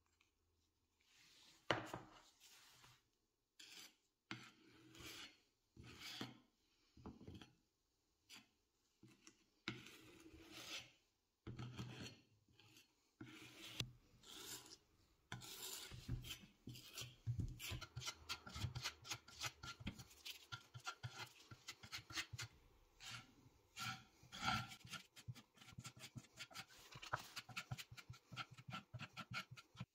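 Metal putty knife scraping wood putty out of a tub and spreading it over wooden boards. The scrapes come singly at first, then as quick back-and-forth strokes from about halfway.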